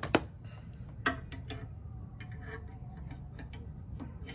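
Metal hand tools, pliers and a screwdriver, clicking and clinking against engine parts: a sharp click just after the start, another about a second in, and lighter taps between, over a low steady hum.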